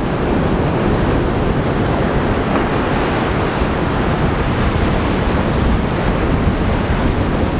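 Steady rush of surf on a rocky shore, with wind buffeting the microphone.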